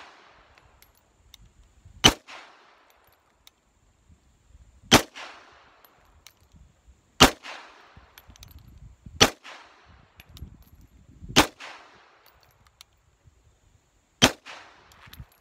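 Springfield Armory 1911 Mil-Spec .45 ACP pistol firing six single shots of steel-case Tula ammunition in slow aimed fire, about two to three seconds apart, each shot trailing off in a short echo.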